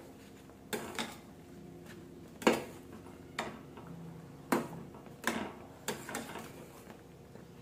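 Flat metal spatula stirring thick upma in a stainless steel kadhai. It knocks and scrapes against the pan about eight times at uneven intervals, over a faint steady hum.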